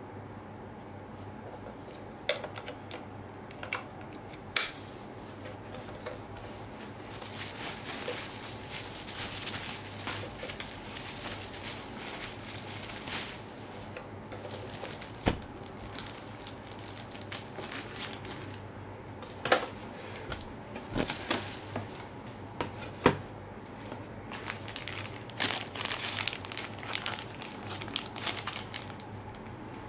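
Clear plastic packaging and bubble wrap crinkling and rustling in the hands, with scattered sharp knocks and taps as the boxed items are handled.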